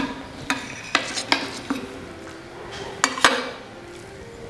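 Steel spoon clinking and scraping against a large stainless-steel bowl while spreading mango thokku through cooked rice: several sharp clinks with a short ring over the first three and a half seconds, then quieter.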